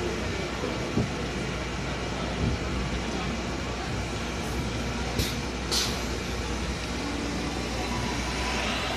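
Battery-electric London double-decker bus standing with its onboard systems humming steadily, with a couple of soft knocks and two short air hisses about halfway through.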